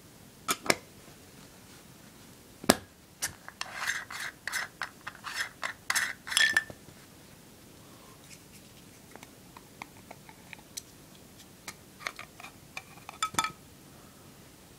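A 0.18x fisheye add-on lens and its lens caps being handled: a few sharp clicks, then several seconds of rapid clicking and scraping, a few faint taps, and another burst of clicks and scraping near the end.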